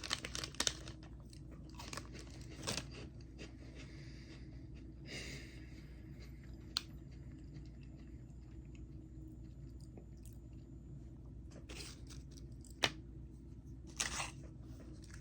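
Someone chewing a crunchy snack, likely a cookie, close to the microphone. Sharp crunches come in short clusters at the start, a few seconds in and again near the end, with quieter chewing between them.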